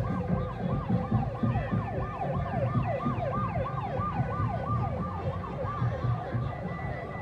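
Electronic vehicle siren in yelp mode, sweeping up and down about three times a second, with a low music beat underneath.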